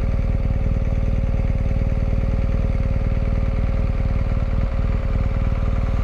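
An engine idling steadily: an even, rapid low pulse with a steady hum above it.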